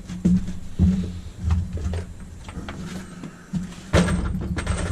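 PEX pipe and fittings being handled and fitted together: a series of sharp clicks and knocks, with a cluster of them about four seconds in, over a steady low hum.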